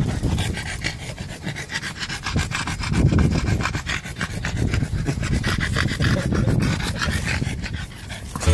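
Boston terrier panting and sniffing right at the microphone, with close-up rubbing and scuffing noises as it noses around the camera.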